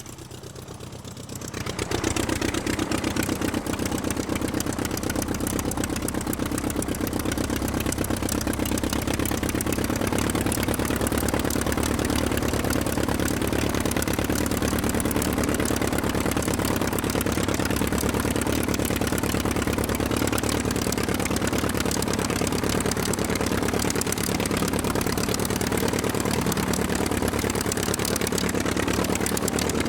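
Aircraft engine running steadily. It starts quieter and swells up within the first two seconds, then holds an even level.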